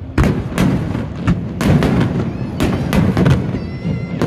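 Aerial fireworks shells bursting, about seven sharp bangs in quick succession, some in close pairs, over a continuous low rumble.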